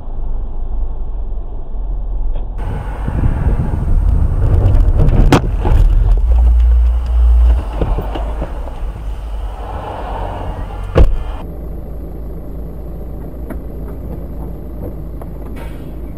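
Dashcam audio from inside moving vehicles: steady road and engine rumble, with two sharp bangs, one about five seconds in and a louder one about eleven seconds in.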